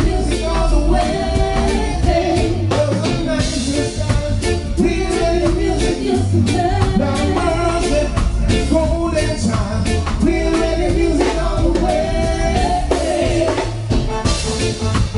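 Live reggae band playing with a singer's voice over it, with strong bass and a steady beat.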